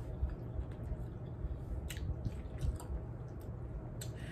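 Close-up eating sounds: frog legs being chewed and pulled apart by hand, soft wet mouth sounds with a few sharp clicks and smacks, over a low steady hum.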